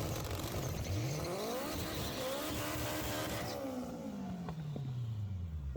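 Car engine revving, its pitch climbing and falling several times, then sliding steadily down over the last two seconds.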